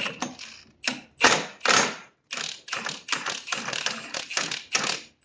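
Milwaukee cordless impact gun hammering in several bursts, the last and longest about three seconds, on a chainsaw crankshaft to break loose a seized reverse-thread clutch.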